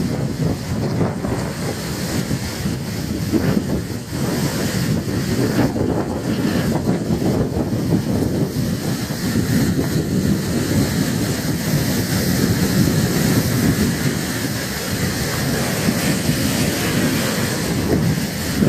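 Strong wind buffeting the microphone: a loud, low rumbling rush that swells and eases in gusts.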